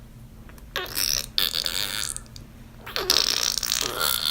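A man making loud guttural throat noises in two spells, one about a second in and another about three seconds in.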